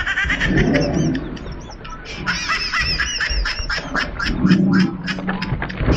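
Birds squawking in a fast run of short calls, several a second, busiest in the second half.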